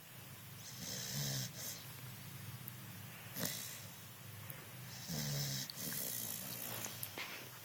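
Snoring: two snores about four seconds apart, each lasting under a second, with a low buzzing note and a breathy hiss. A short sharp click falls between them.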